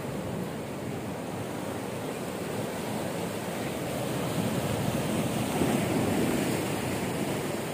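Sea waves breaking and washing over shoreline rocks: a continuous rush of surf that swells louder about five seconds in.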